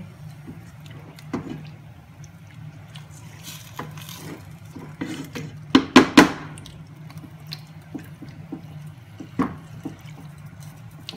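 A silicone spatula stirs chicken pieces through a wet masala in a cooking pot, with wet stirring noise and scattered knocks against the pot. The loudest strokes come about six seconds in, over a steady low hum.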